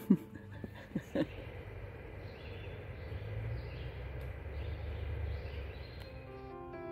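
Faint outdoor ambience: a low, steady engine hum with faint bird chirps, after a couple of brief voice sounds near the start. Piano music comes in near the end.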